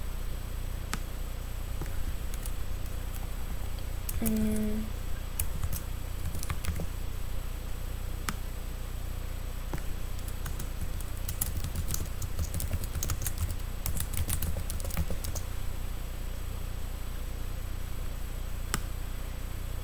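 Computer keyboard typing in scattered keystrokes, busiest about halfway through, over a steady low hum. A short hummed sound from a voice about four seconds in.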